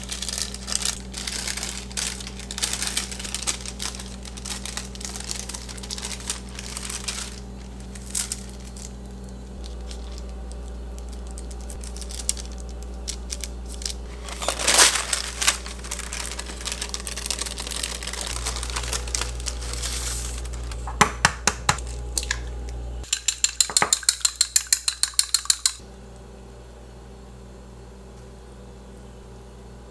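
Patty paper crinkling and rustling as it is peeled off frozen scallion-pancake sheets. It sticks and is hard to tear off because the pancake has softened. Later come scattered handling sounds, one louder rustle, and near the end a run of quick, even clicks for a few seconds.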